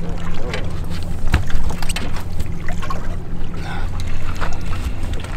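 A boat's motor running with a steady low hum, under wind noise on the microphone.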